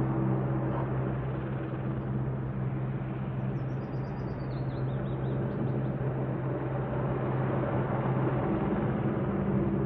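AgustaWestland AW101 search-and-rescue helicopter flying low, its rotor and turbines making a steady drone with a low hum. The drone eases slightly in the middle and grows again near the end.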